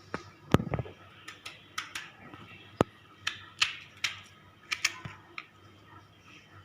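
A knife cutting and splitting spiny gourds: a dozen or so sharp, irregular clicks and knocks.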